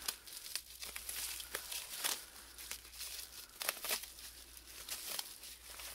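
Plastic bubble wrap crinkling and rustling as it is unwrapped by hand from a glass wind-chime piece, with sharp crackles scattered throughout.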